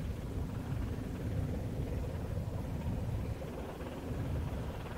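Inland cargo ship's diesel engine running as the vessel passes, a steady low rumble, with water washing along the hull.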